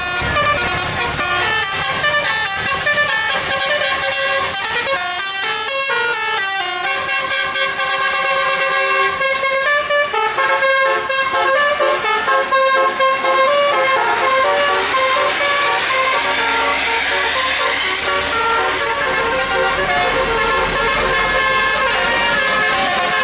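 Bus telolet musical air horn (Basuri type) playing a tune in a run of stepped notes, with sliding pitch bends about five to seven seconds in. A growing rushing noise joins it over the second half.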